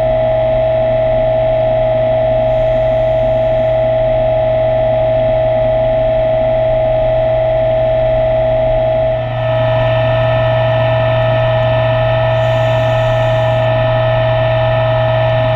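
Underwater scooter (diver propulsion vehicle) motor running steadily underwater: a loud, even whine with one strong steady tone over a low hum. The pitch shifts slightly and the level dips briefly about nine seconds in.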